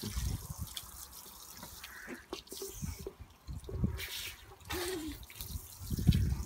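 Water dribbling and spattering from a garden hose nozzle in irregular drips and splashes.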